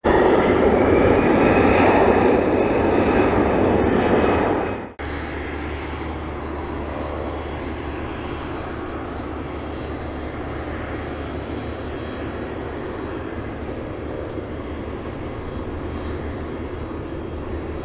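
Jet aircraft noise throughout: a louder jet roar for about five seconds that cuts off abruptly, then the steady hum and high, thin whine of a Boeing 767-300F freighter's General Electric CF6 turbofans running at idle as it taxis.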